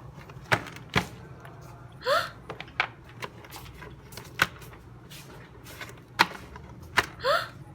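A box and its packaging being handled and opened: scattered sharp clicks and taps over low rustling, with two short rising squeaks, one about two seconds in and one near the end.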